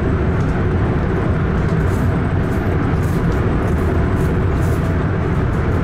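Steady, loud low rumble of a high-speed train running fast through a long tunnel, heard from inside the carriage.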